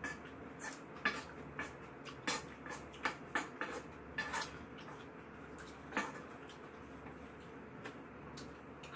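Spoon scraping and clinking against a frying pan while eating from it, a quick run of short clicks and scrapes over the first four or five seconds, one more sharp clink about six seconds in, then only a few light taps.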